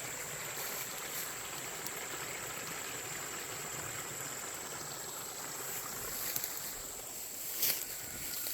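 Creek water running steadily, an even rushing flow. A few short clicks near the end.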